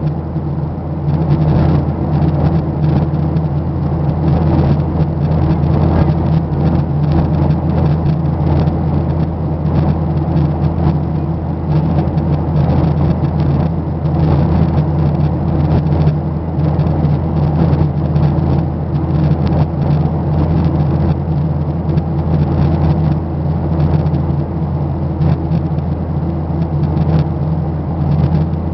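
Steady, loud drone of an airliner cabin in flight: engine and rushing air noise, unchanging throughout.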